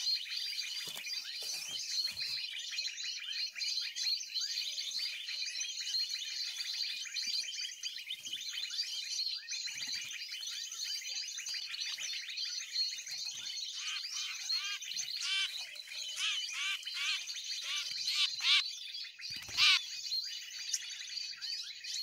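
Dense, continuous high-pitched bird chirping and twittering from a bird-call recording played on a phone as a lure for glue-stick bird trapping. A single short knock comes shortly before the end.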